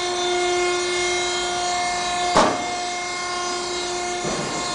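Hydraulic power unit of a Birmingham VH series hydraulic box and pan folding machine running with a steady tone, with one sharp clunk about two and a half seconds in.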